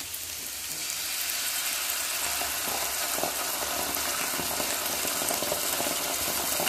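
Sliced onions frying in hot oil in a non-stick pan, giving a steady sizzle that grows a little louder about a second in.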